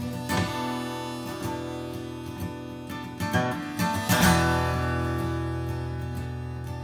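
Acoustic guitar strummed in a steady folk accompaniment, with a harmonica in a neck rack played over it during an instrumental passage without singing. A cluster of stronger strums falls around the middle.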